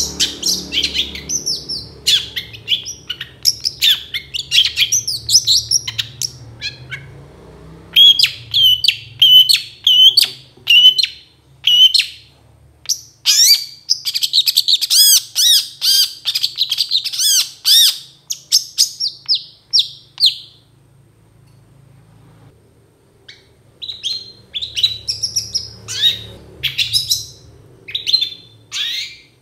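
Long-tailed shrike (cendet) singing a fast, varied song of sharp chirps and harsh notes, with a quick string of repeated notes and a dense warbling stretch. The song breaks off for about three seconds, then starts again.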